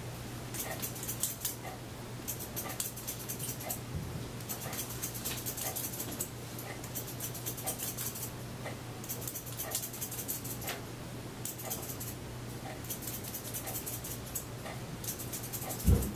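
Hair-cutting scissors snipping through hair in quick runs of cuts, over a steady low hum; a dull thump near the end.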